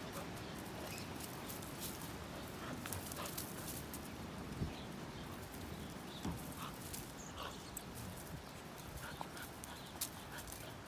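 Two dogs play-wrestling on dirt and dry leaves: scuffling, thudding paws, with a few short dog sounds now and then.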